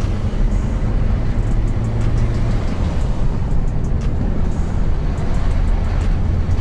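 Steady in-cabin driving noise of a Nissan Terrano on a snow-covered road: a low engine and tyre drone with road rumble.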